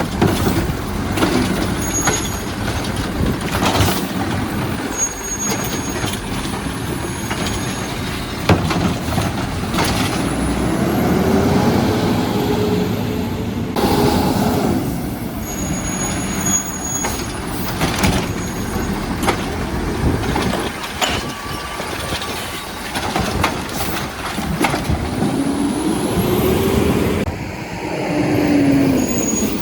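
Automated side-loader garbage truck with a Heil Rapid Rail arm at work. Its diesel engine revs up and drops back twice as the hydraulic arm lifts and dumps carts, with scattered knocks and bangs of the carts, air-brake hiss and an on-and-off high beeping tone.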